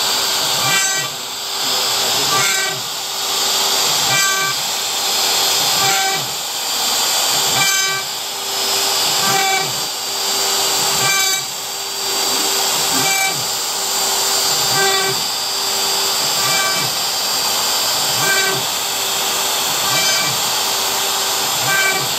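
CNC router spindle running with a steady high whine while its bit cuts grooves into a wooden drumstick turned on a rotary axis. The cutting noise dips and returns in a cycle repeating about every second and three quarters, with a short pitched tone at each repeat as the machine moves to the next groove.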